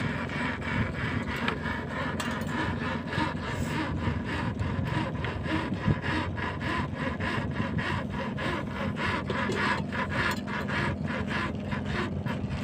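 Nylon rope being drawn along and rubbing against the net's bamboo frame: a rhythmic rasping, about three strokes a second, over a faint steady low hum.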